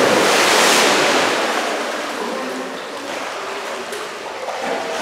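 Big splash of a dog landing in a dock-diving pool, then the water washing and settling, loudest at the start and fading over a few seconds.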